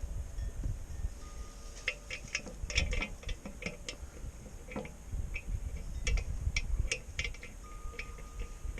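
Irregular light metallic clicks and clinks of hand tools, bolts and washers being worked while a mini bike's fender is bolted on, most of them between about two and seven seconds in, with a faint ringing of metal.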